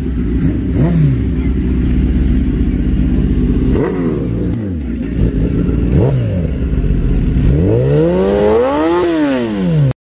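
Sportbike engine idling and being revved in short blips, its pitch rising and falling about four times; the last rev near the end is the longest and highest. The sound cuts off suddenly just before the end.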